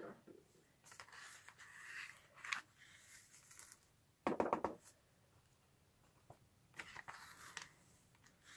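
Small handling noises from card stock and a plastic tub holding clear embossing powder: brief scratchy rustling and scraping, with one dull knock a little over four seconds in.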